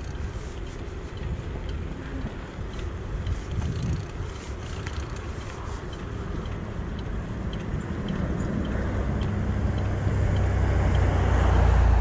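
Bicycle ride noise with wind rumble on a chest-mounted camera microphone; over the last few seconds a motor vehicle's engine hum grows steadily louder.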